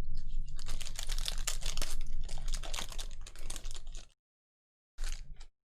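Foil trading-card pack being torn open and the cards handled, a rapid crackling and clicking for about four seconds that stops suddenly, with one short burst near the end.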